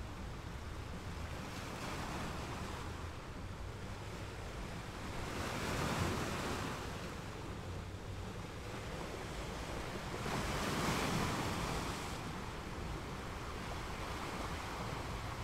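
Ambience recording of waves crashing on a rocky beach: a steady wash of surf that swells twice, about six seconds in and again around eleven seconds.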